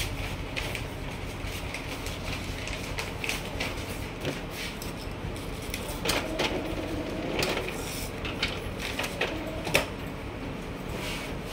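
Epson L3250 ink-tank inkjet printer's mechanism working, with a series of sharp clicks and brief whirs about halfway through over a steady background hum.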